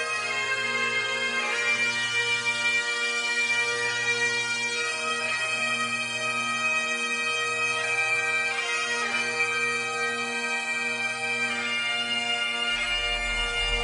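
Bagpipe music: a slow melody played over steady drones. A deep low sound comes in near the end.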